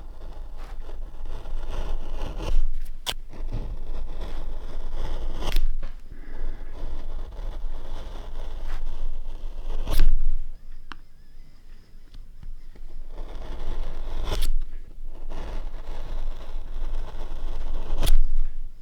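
Linocut gouge scraping through a linoleum block in repeated carving strokes, with a sharp click every few seconds as the tool lifts out or knocks the block.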